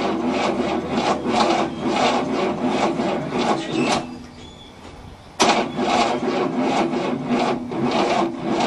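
1967 Cadillac's 429 V8 being cranked by its starter motor without firing, in a slow, even rhythm of about three beats a second; it cranks for about four seconds, stops briefly, then cranks again. The engine is turning too slowly to start, on a weak battery through jumper cables.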